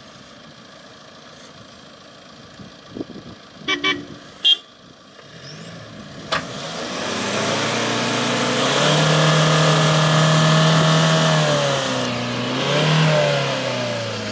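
A few short car-horn toots about four seconds in. Then an SUV's diesel engine revs up and holds high under heavy load for several seconds, eases, and revs again near the end: a tow-strap recovery pulling a stuck SUV out of deep ruts.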